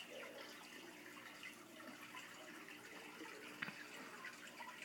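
Aquarium water trickling and bubbling steadily, with one sharp click about three and a half seconds in.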